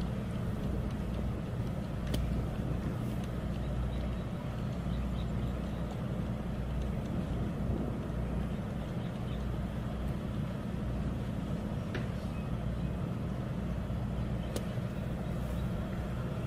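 Steady low outdoor rumble, with a few short sharp strikes of a golf club hitting into bunker sand: one about two seconds in and two more near the end.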